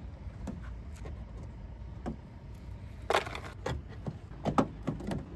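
Scattered small clicks, taps and scrapes as hands and a thin pry tool work at the felt trunk-lid liner of a Honda Accord and its plastic push clips, with a louder scrape about three seconds in and a few sharp clicks a little after.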